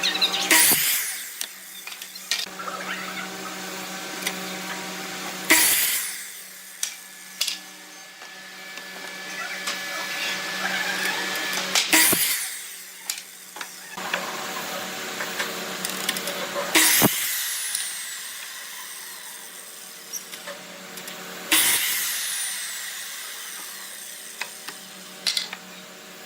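Electric power tool running with a steady hum. Five loud, harsh bursts of noise break in a few seconds apart.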